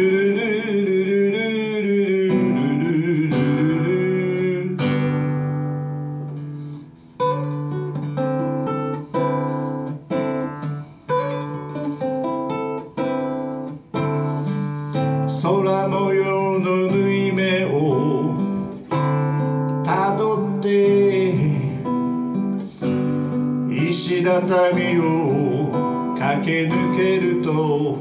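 Nylon-string electric-acoustic classical guitar amplified through a PA, played in a steady rhythm of picked and strummed chords, with a voice singing along in places.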